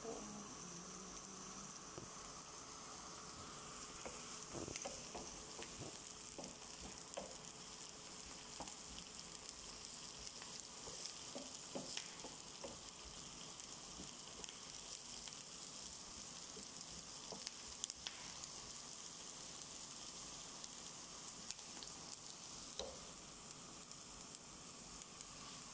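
Sliced onions sizzling steadily in hot oil in a nonstick frying pan, with scattered scrapes and taps from a wooden spoon stirring them.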